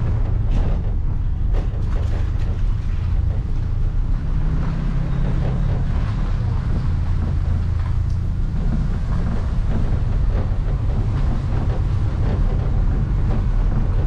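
Steady low rumble of a moving vehicle, its pitch shifting slightly a few times, with wind noise over it.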